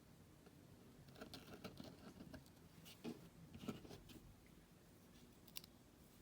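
Faint handling noises of small computer parts being fitted by hand: a cluster of light taps, clicks and rustles, then one sharper click near the end.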